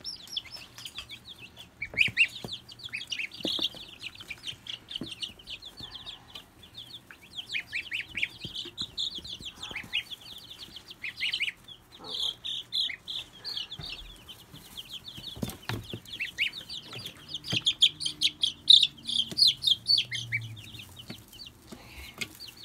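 A group of baby chicks peeping almost without pause: many short, high, falling peeps overlapping, loudest a few seconds before the end. A few knocks are heard among them.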